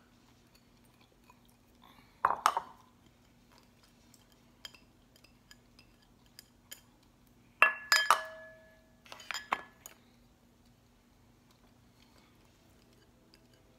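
Tableware clinking: a few sharp knocks of a utensil or dish against a small bowl, about two seconds in, around eight seconds in with a brief ring, and again just after nine seconds. A faint steady hum runs underneath.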